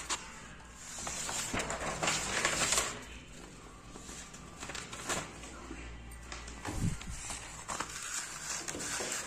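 Paper sheets rustling and crackling as they are handled and the pages turned, loudest in a stretch of rustling about two seconds in, with scattered sharp crackles.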